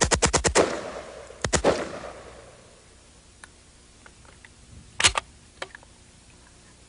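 Fully automatic AK-47 in 7.62×39mm firing bursts: a rapid string of shots at about ten a second ends about half a second in, a short burst of three or four follows a second later, and two more shots come about five seconds in, followed by a few faint clicks.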